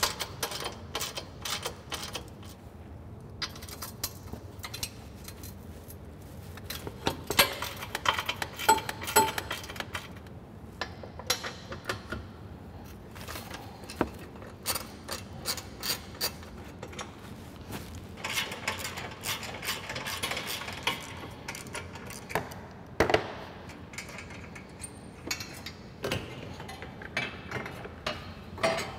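Hand tools clicking and metal parts knocking and clinking as the screws holding an ATV's front bumper tube are taken out and the bumper is lifted off. The clicks come in irregular runs, busiest in two stretches near a third of the way in and again about two thirds of the way through.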